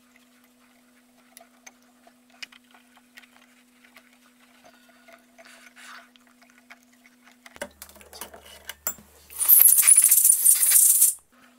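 Faint ticking and clicking of an M4 tap being turned by hand into a drilled hole, sped up, followed by louder clicks and rattles, then a loud hiss lasting about two seconds near the end as metal chips are blown out of the tapped hole.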